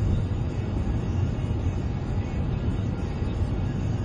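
Steady low rumble of a car's tyres and engine heard from inside the cabin, driving on a rough, bumpy country road with the left wheels on the edge of the bitumen.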